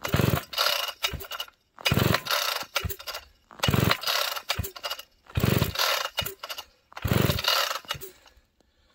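Partner P61 chainsaw being pull-started: five hard yanks on the recoil starter rope, about one every two seconds, each with the engine cranking over and the rope clacking back. It does not fire; the saw is cold-soaked at about minus 25 °F.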